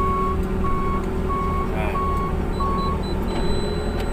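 Manitou telehandler's warning beeper sounding steady, even beeps, about three every two seconds, which stop about three seconds in. Under it the machine's diesel engine idles steadily, with a brief falling squeak about two seconds in.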